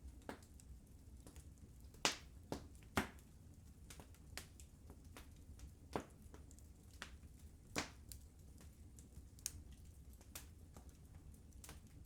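Wood fire crackling in a fireplace: irregular sharp pops and snaps over a low steady rumble, with the loudest pops about two and three seconds in and again near eight seconds.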